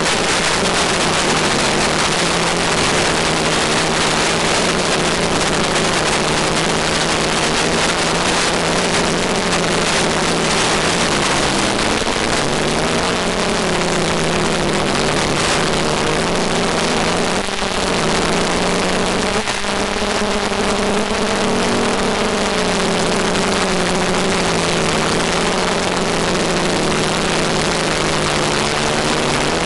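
Multicopter motors and propellers running steadily in flight over a constant hiss, their pitch drifting up and down as the throttle changes.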